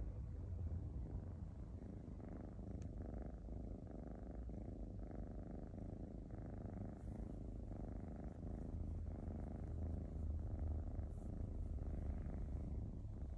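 Black kitten purring steadily while its belly is stroked: the purr swells and fades in a regular rhythm, a little faster than once a second.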